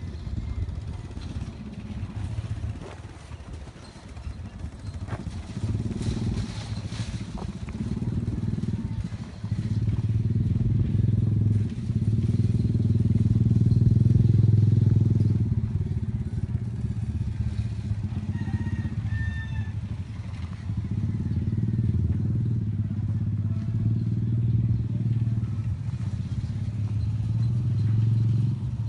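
Low, steady rumble of a vehicle engine moving slowly, loudest around the middle. A rooster crows faintly a little past halfway.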